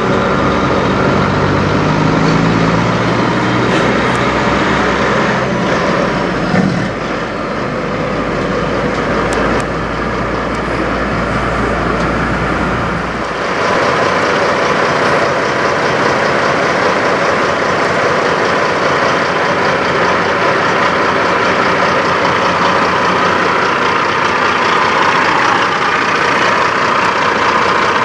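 2000 Kenworth W900 semi's diesel engine running with a low rumble as it pulls a trailer slowly across the lot. About halfway through, the sound changes to the truck idling steadily close up, without the low rumble.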